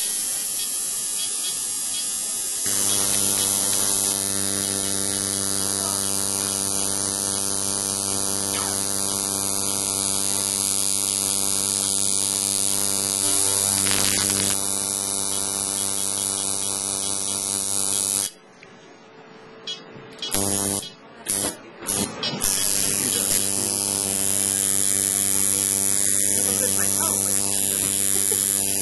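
Electric tattoo machine buzzing steadily as it inks a dog's ear. It starts a few seconds in, cuts out for a few seconds past the middle apart from several short bursts, then runs again.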